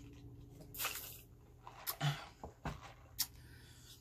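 Close-miked sipping of a soda through a straw and swallowing, with a short hissy slurp about a second in, followed by a few soft knocks and clicks as the paper cup is handled and set down.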